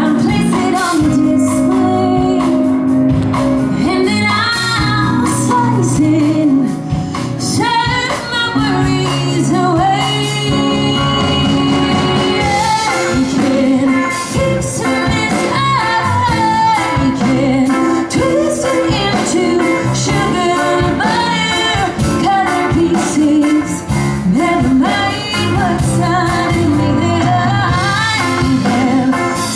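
A woman singing a musical-theatre ballad live into a microphone, backed by a small orchestra with piano, strings and double bass.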